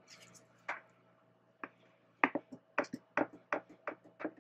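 Plastic spatula tapping and scraping against the inside of a plastic container while the last of the raw soap batter is scraped out: a few faint clicks, then a quick run of sharp taps over the second half.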